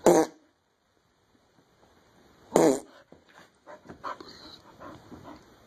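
A dog barks twice, two short loud barks about two and a half seconds apart. Fainter short sounds follow the second bark.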